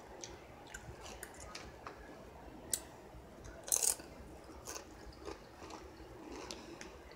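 Ruffles ridged potato chips being chewed, with faint, irregular crunches and a few sharper cracks.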